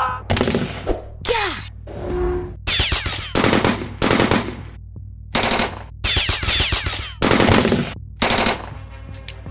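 Automatic gunfire sound effects in several short bursts of about half a second to a second each, with brief pauses between them.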